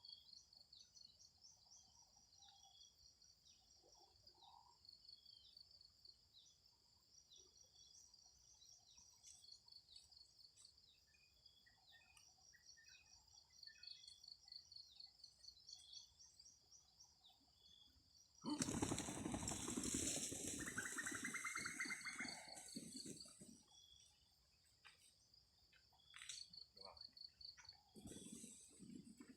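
Insects trilling steadily in high, rapid pulses, with faint chirps. About two-thirds of the way in, a loud noisy burst lasting about four seconds, with a short pitched call inside it, rises over the trilling and then fades.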